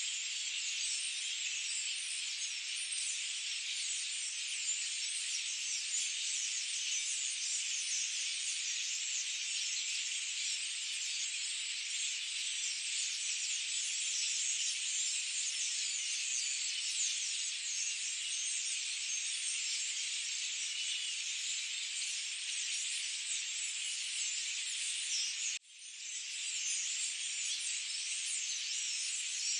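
Forest ambience: a dense, steady high-pitched chorus of wildlife calls. About 26 seconds in it cuts out for a moment and fades back in.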